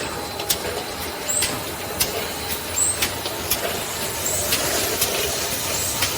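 Can-making production line machinery running steadily, with sharp clicks about twice a second and a brief high-pitched sound about every one and a half seconds.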